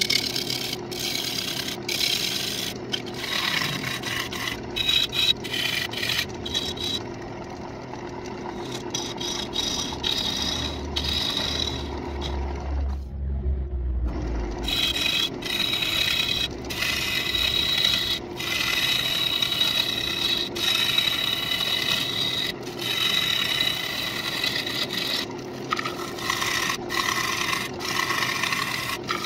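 A bowl gouge cutting the inside of a walnut bowl spinning on a wood lathe: a rough, steady scraping of the cut with many sharp little catches, over the lathe motor's hum. The cutting stops for a second or two about midway, as the lathe is halted, then picks up again.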